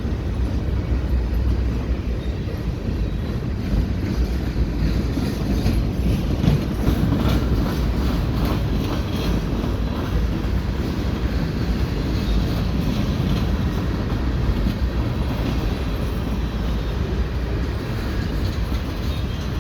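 Freight cars of a CN mixed freight rolling slowly past under a yard speed restriction: a steady rumble of steel wheels on rail, with many short clicks and clanks from the wheels and cars.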